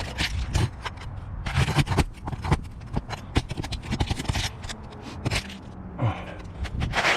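Asphalt roof shingles and hand tools being handled on a roof: irregular scraping with scattered knocks and taps, and a few louder scrapes about one and a half seconds in and again near the end.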